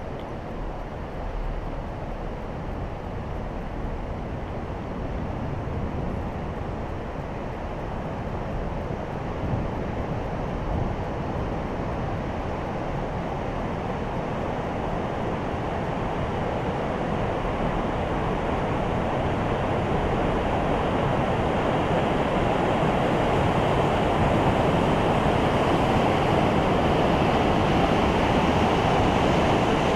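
Steady rushing noise inside a moving gondola cabin, growing gradually louder through the second half.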